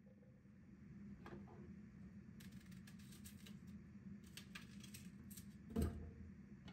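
Light clicks and taps as a countertop cooking robot's lid and bowl are handled, with one louder thump about six seconds in, over a faint steady low hum.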